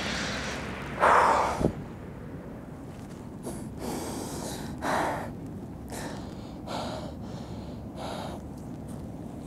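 A man gasping and breathing hard in pain from a knee injury: one loud gasp about a second in, then short, strained breaths roughly every second.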